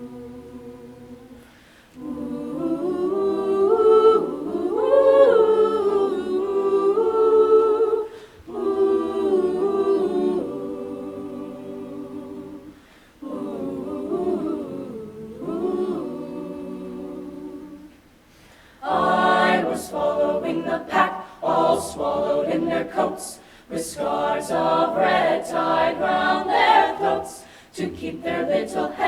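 School choir singing a cappella in several parts: long held, swelling chords, then about two-thirds of the way in a faster rhythmic passage of short, clipped syllables with crisp consonants.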